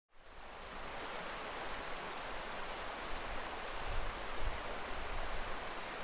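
Rushing woodland stream, a steady noise of water running over rocks that fades in at the very start, with a few low rumbles about four seconds in.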